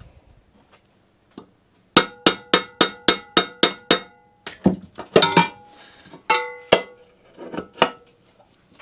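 A mallet tapping the roller shaft of a Ransomes Ajax reel cylinder mower, drifting it sideways to even up the play on both sides. A quick run of about eight ringing metal taps, about four a second, then a few more scattered taps.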